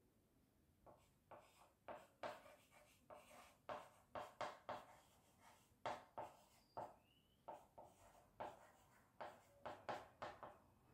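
Chalk writing on a small blackboard: a quick run of short scratching strokes and taps, starting about a second in.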